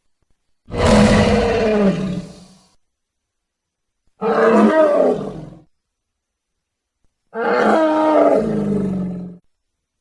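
Monster creature sound effect built from mid-sized ceratopsian dinosaur calls: three separate roars, each one and a half to two seconds long, with short silences between them.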